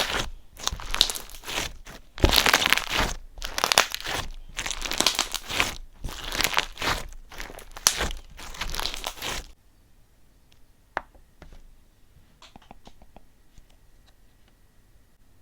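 Close, dense crinkling and crunching, like something being handled or unwrapped by hand, in repeated surges. It stops abruptly about nine and a half seconds in, leaving only a few faint clicks.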